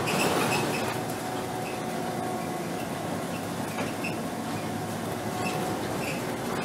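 Inside a 2010 Scania K270 city bus on the move: its rear-mounted diesel engine runs with a steady drone under road noise, with small high squeaks or rattles every second or so.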